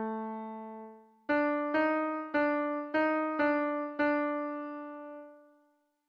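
Background piano music. A held note fades out, then a slow phrase of six single notes about half a second apart dies away near the end.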